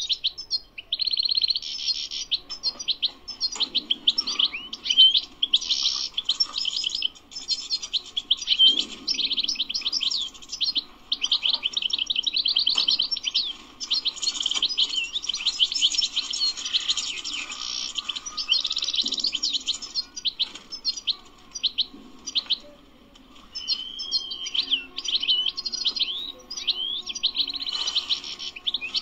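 European goldfinch singing: long phrases of fast, high twittering and trills, broken by a few short pauses.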